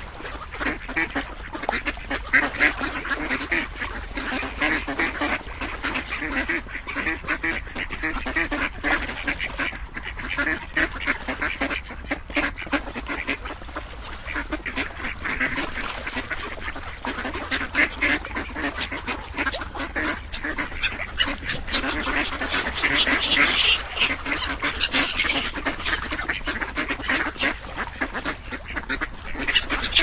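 Ducks quacking continuously, many calls overlapping, a little louder in the last third.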